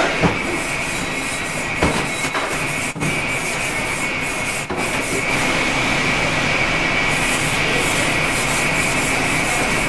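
A steel knife blade being stroked back and forth across a Japanese water stone, a steady rasping scrape of sharpening.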